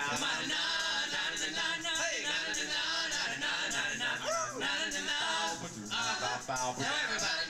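A vocal group singing a song together in harmony over backing music, with sung pitches sliding and bending throughout.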